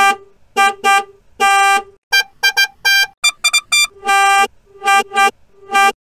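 Car horn honking in a fast rhythmic pattern of short beeps broken by three longer blasts, nearly twenty honks in all.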